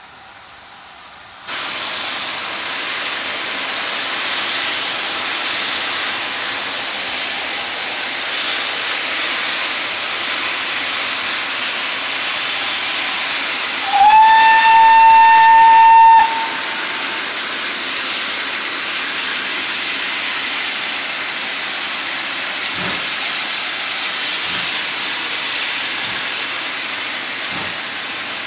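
Steam locomotive letting off a loud, steady hiss of steam that starts about a second and a half in. About halfway through it gives one whistle blast of about two seconds. In the last few seconds faint, slow exhaust beats begin, about one every second and a half, as the engine starts to move.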